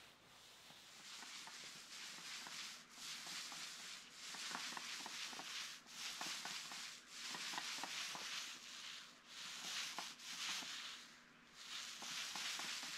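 Paint roller on an extension pole spreading liquid sealer over a concrete floor: a wet rolling hiss in repeated back-and-forth strokes, each about a second long, with small pops and ticks.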